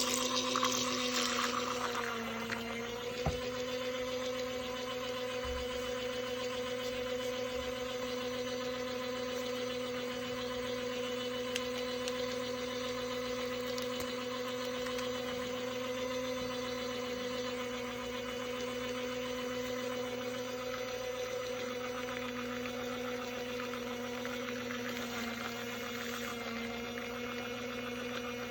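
Small battery-powered toy washing machine's motor running, a steady hum with a faint rattling whir from the spinning drum. A single click about three seconds in.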